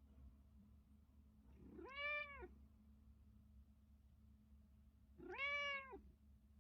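Domestic cat meowing twice, about three and a half seconds apart, each call under a second long and rising then falling in pitch. It is calling its owner awake in the morning.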